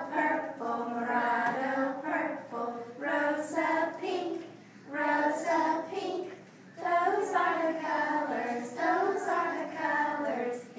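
A class of three- to four-year-old children singing a song together without instruments, in short phrases with brief breaths between.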